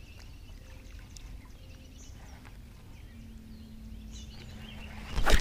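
Quiet open-air background with a few faint bird chirps, then a sudden loud thump a little after five seconds in.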